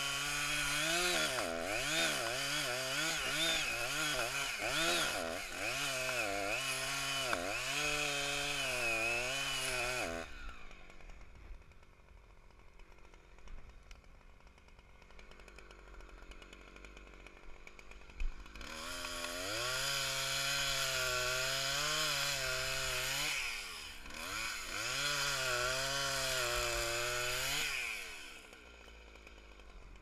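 Two-stroke chainsaw cutting into the trunk of a dead red oak, its engine pitch rising and sagging as the chain loads in the wood. It drops off about ten seconds in. After a sharp click it revs up again in two long cutting spells, then drops off again near the end.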